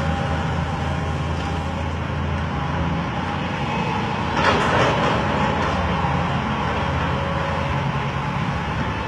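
Diesel excavator engine running steadily with a low hum. About halfway through, a louder rushing burst lasts under a second.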